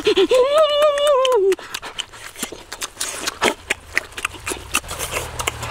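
A person eating roast chicken with his mouth against the meat. It opens with a drawn-out vocal hum of about a second and a half, then goes to many short wet clicks of chewing, tearing and lip-smacking.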